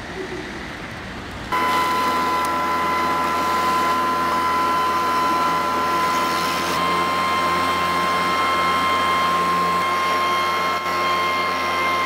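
Small electric motor of a child's battery-powered ride-on toy motorbike whining steadily at a constant pitch, starting abruptly about a second and a half in; before that, faint street noise.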